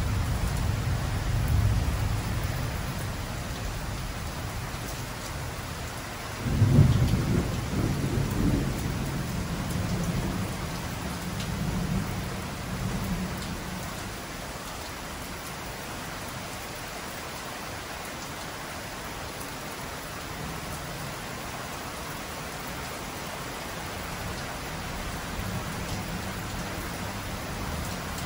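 Thunderstorm: steady heavy rain with rolling thunder. A low rumble at the start builds to a loud crack about a quarter of the way in, which rumbles on and dies away by the halfway mark, leaving the even hiss of pouring rain.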